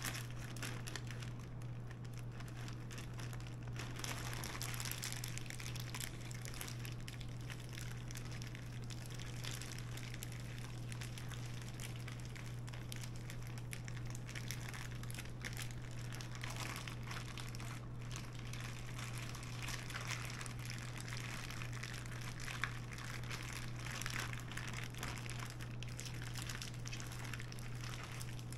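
Plastic zip-top bag crinkling and squelching as a pork loin roast is squished around in marinade inside it, over a steady low hum.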